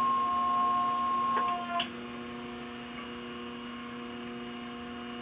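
Hydraulic hose crimper running in reverse as its dies open to release the crimped fitting: a steady whine that stops with a click a little under two seconds in, leaving a steady electrical hum.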